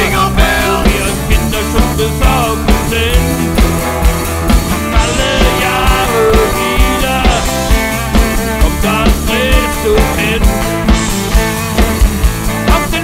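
A small acoustic rock band playing a German Christmas-song medley: acoustic guitars and electric bass, with a drum kit keeping a steady beat. A melody line bends and slides above the chords.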